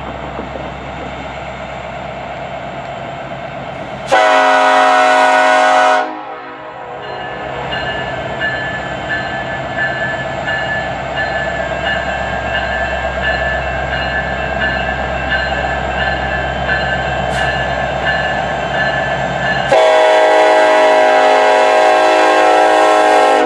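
Norfolk Southern diesel locomotive sounding its horn in two blasts: a short one of about two seconds, then a longer one near the end. Under them the locomotive's diesel engine rumbles steadily as the train approaches.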